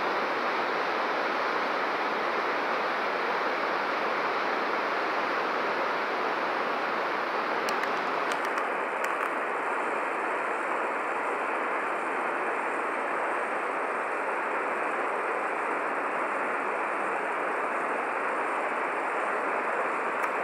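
Steady rush of a mountain waterfall plunging down a rock face, an even noise with no breaks; its high hiss turns a little duller about eight seconds in.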